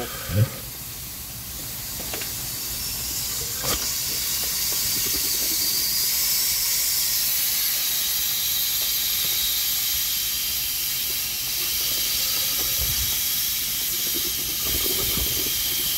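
Steam hissing steadily as it escapes around the cylinders of a US Navy small-boat steam engine being warmed up with the throttle just cracked. A single sharp click sounds about four seconds in.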